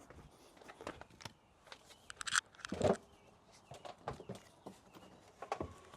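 Scattered clicks, knocks and light rattles of hand tools and metal parts being handled during battery and cable work, with a short scrape about two seconds in and a heavier knock just before three seconds.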